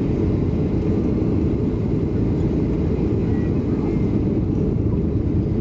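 Steady low rumble of cabin noise in a Boeing 737-900, its engines and airflow heard from inside the cabin during the landing phase.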